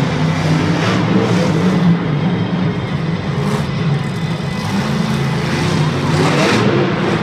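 El Toro Loco monster truck's engine revving hard, its pitch rising and falling with the throttle as the truck drives and turns on the dirt track.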